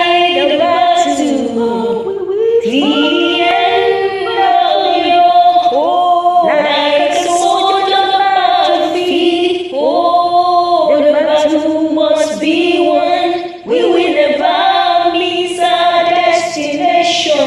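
A woman singing a song unaccompanied, in continuous phrases with short breaks between them.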